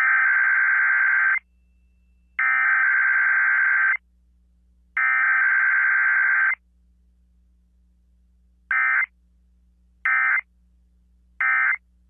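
Emergency Alert System SAME header: three identical buzzy digital data bursts, each about a second and a half long and about a second apart. These are followed by three much shorter bursts, the end-of-message code.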